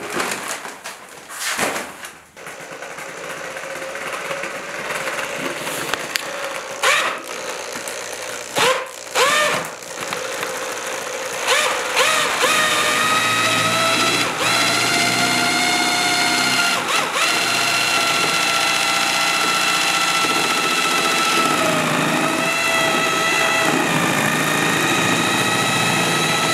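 Corded hammer drill with a mixing paddle running steadily in a plastic bucket of thick mortar, starting about halfway through. It gives a steady motor whine that dips briefly in pitch near the end. Before it starts there are irregular knocks and rustling as dry mortar mix is added to the bucket.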